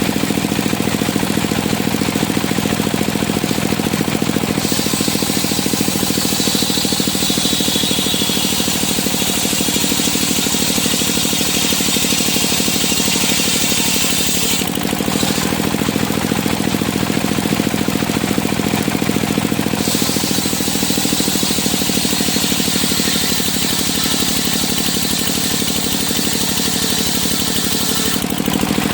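Engine-driven circular sawmill running steadily, with a high whine from the saw blade cutting through timber from about five seconds in to about fifteen, and again from about twenty seconds until near the end.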